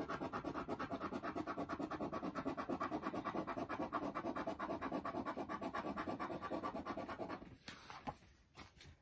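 A scratch-off lottery ticket being scratched with a round coin-like tool: fast, even back-and-forth strokes, about ten a second, scraping the coating off the play area. The scratching stops about seven seconds in, followed by faint rustling as the ticket card is handled.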